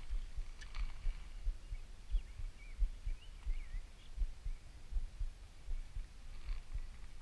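Wind buffeting the camera microphone as a low, irregular thumping rumble, with a few faint bird chirps two to three seconds in.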